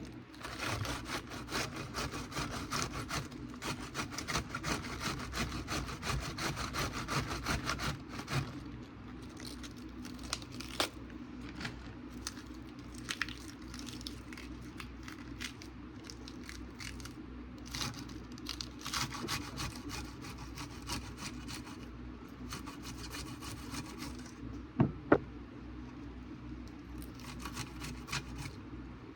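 Iceberg lettuce grated on a cheese grater: quick, rhythmic scraping strokes in several spells, heaviest at the start. A steady low hum runs underneath, and two sharp knocks come near the end.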